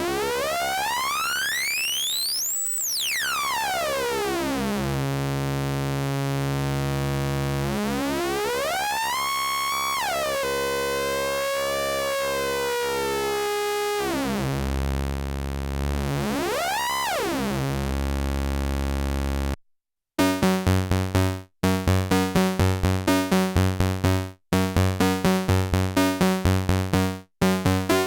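Cre8audio Capt'n Big-O analog Eurorack oscillator hard-synced to another oscillator: a steady low drone whose overtones sweep up and down in repeated glides, the typical hard-sync sweep. About 19 seconds in it cuts off, and a fast sequence of short decaying synth notes starts, several a second.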